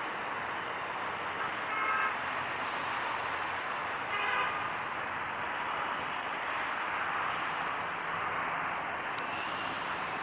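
Steady hum of urban traffic with two short horn toots, one about a second and a half in and another about four seconds in.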